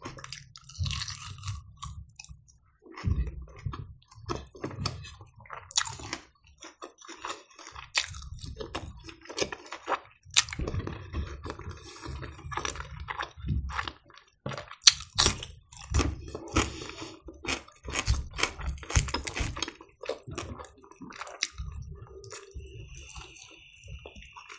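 Close-miked chewing of smoked chicken torn off by hand, with many irregular short clicks from the mouth and the meat.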